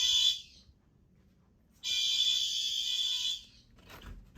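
Fire alarm horns from a test system sounding together in a slow on-off pattern: a buzzing blast of about one and a half seconds, then an equal pause, about one blast every three seconds.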